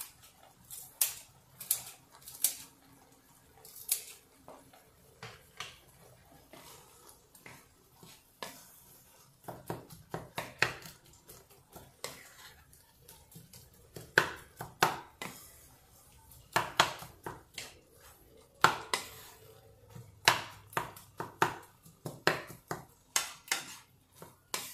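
Wooden spatula knocking and scraping against a non-stick frying pan while a thick masala is stirred and mashed, making irregular clatters with the sharpest knocks near the middle.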